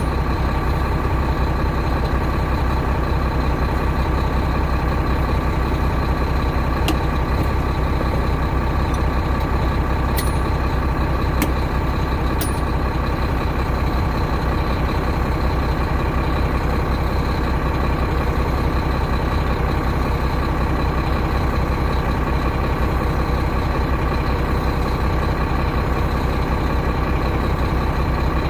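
Volvo semi truck's D13 diesel engine idling steadily while it warms up, with a few light clicks.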